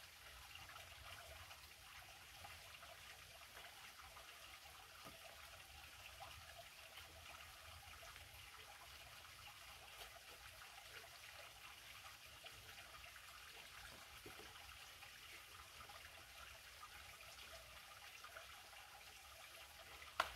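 Near silence: a faint, steady background hiss, with one sharp click near the end.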